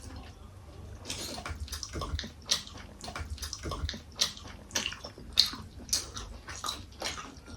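Close-up wet chewing and mouth sounds of someone eating vegetable momo dumplings, with irregular small clicks and squelches.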